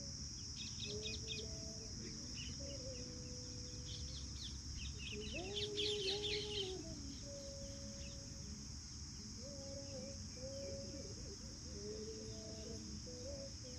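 Outdoor park ambience: birds chirping in quick clusters, loudest about six seconds in, over a steady high insect drone.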